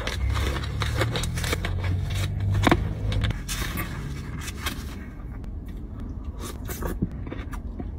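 Plastic spoon stirring halo-halo in a plastic cup, scraping and clicking against the cup wall and through the shaved ice, busiest in the first half.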